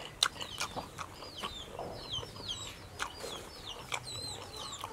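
Chickens clucking in the background with many short, high chirps, mixed with sharp wet mouth clicks of close-up chewing.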